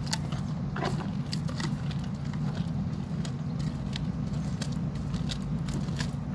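Hereford bull eating fibrous green stalks from a feed trough: irregular crackling and snapping as the stalks are bitten and chewed, over a steady low rumble.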